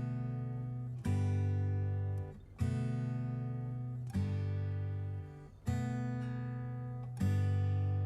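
Music: an acoustic guitar strumming chords, one strum about every second and a half, each left to ring and fade.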